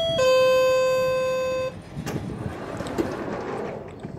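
GO Transit coach door-closing chime sounding its last, lowest note, held about a second and a half and fading, then the doors sliding shut with a few knocks about two and three seconds in.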